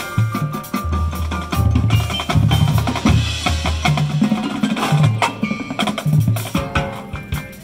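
Marching band playing: drums and front-ensemble mallet percussion (marimbas and vibraphones) strike many quick, ringing notes over a line of low bass notes that step in pitch.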